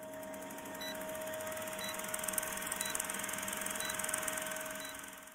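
Old-film countdown sound effect: a film projector's steady whirring clatter with a hum under it, and a short high beep about once a second as each number passes. It fades out near the end.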